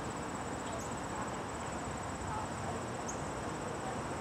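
Insects trilling steadily in a continuous high-pitched pulsing buzz, over a low, even outdoor background hum, with a few faint, short bird chirps.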